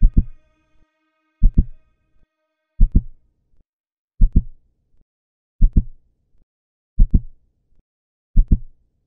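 A human heartbeat in steady lub-dub pairs, seven double beats about one every 1.4 seconds, slow and even.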